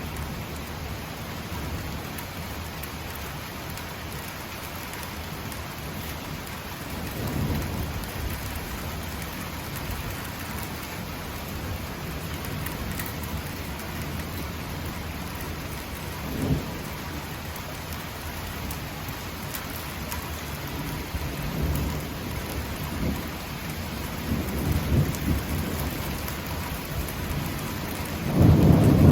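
Heavy downpour in a sudden thunderstorm, a steady hiss of rain, with thunder rumbling several times: about a quarter of the way in, near the middle, a few times in the last third, and loudest right at the end.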